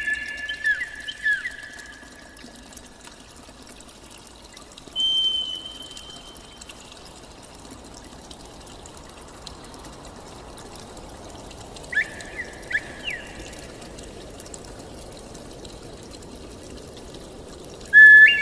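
Water pouring and trickling steadily, with a bird's clear whistled calls over it. There is a loud held whistle with quick slides at the start, a single higher note about five seconds in, a short run of notes about twelve seconds in, and another loud held whistle near the end.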